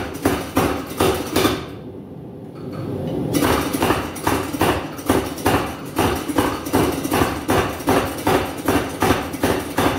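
Rapid, evenly spaced hammer blows forging coil-spring steel into a knife, about four strikes a second. They stop for about a second and a half near two seconds in, then resume at the same pace.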